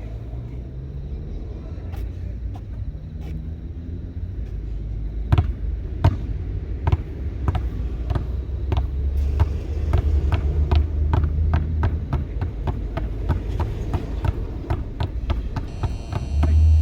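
Two basketballs being dribbled on a hard court: sharp bounces at about three a second, starting about five seconds in, over a steady low rumble.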